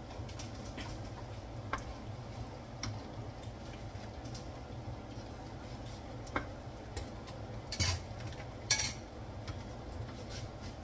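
Wooden spoon stirring a thick meat sauce in a metal sauté pan: soft scraping with scattered light knocks of the spoon against the pan, two louder ones about eight seconds in. A steady low hum runs underneath.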